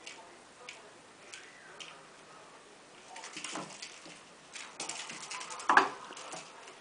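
A kitten playing with a spring-wire feather toy on a suction-cup base on a tiled floor: scattered light clicks and taps of the toy and paws on the tiles, growing busier in the second half, with one louder knock a little before the end.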